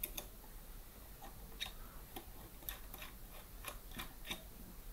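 Light, irregular metal clicks and ticks, about two a second, as the router PC's metal case is handled and worked on by hand.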